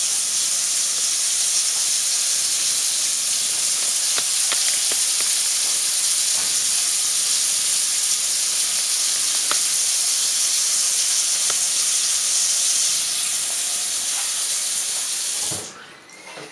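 Kitchen tap running into a stainless-steel sink: a steady hiss with a few faint clicks, shut off about fifteen seconds in.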